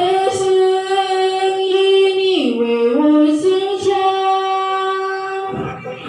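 A woman's voice singing unaccompanied through a sound system's loudspeakers, sweet-toned and in what listeners took to be Chinese. She holds long, slow notes, dropping to a lower note for about a second midway before returning.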